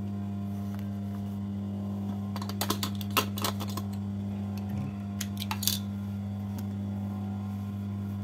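Steady low electrical hum with scattered light clicks and taps from handling at a sewing table, a cluster about two and a half to three and a half seconds in and another near five and a half seconds.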